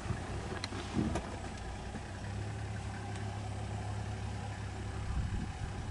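Vehicle engine idling with a steady low hum, and a few sharp clicks in the first second or so.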